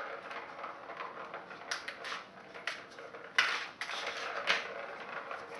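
Plastic ring-track cat toy clattering as a kitten bats the ball around inside it: irregular clicks and rattles, the sharpest about three and a half seconds in.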